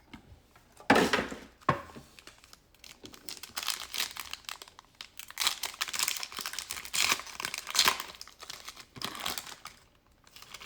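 Crinkling and tearing of a plastic trading-card pack wrapper as it is handled and ripped open, in irregular bursts. The sharpest rip comes about a second in, followed by a busy run of crinkling.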